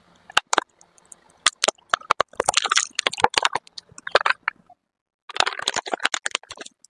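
Small plastic cases cracking and crunching as a car tyre rolls over and flattens them: a run of sharp snaps and crunches, a brief pause, then a second dense burst of cracking near the end.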